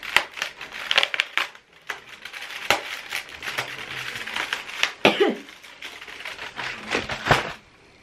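Cadbury Dairy Milk chocolate advent calendar being opened: the cardboard door and the plastic tray inside crackle, crinkle and click as a chocolate is pried out. The handling noise stops shortly before the end.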